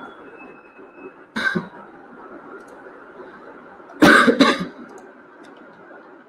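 A person coughing: once about a second and a half in, then twice in quick succession about four seconds in, over steady background noise.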